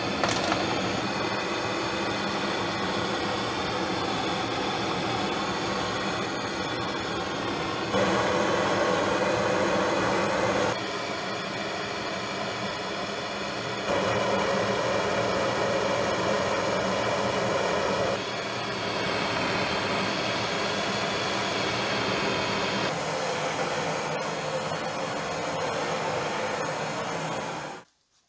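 Propane gas burner running with a steady rushing hiss while it heats a steel hammer head to about 800 °C for hardening. Its loudness and tone shift several times, and it cuts off abruptly near the end.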